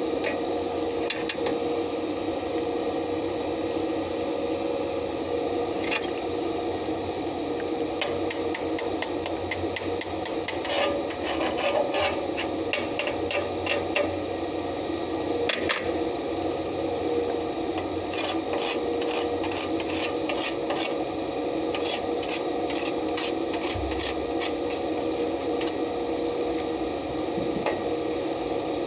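Quick metal-on-metal taps of a chipping hammer knocking slag off a fresh stick weld, in two fast runs of several strikes a second, over a steady machine hum.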